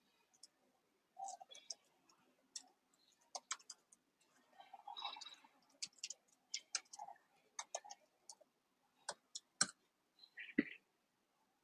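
Typing on a computer keyboard: irregular keystroke clicks at an uneven pace, with a louder key press near the end.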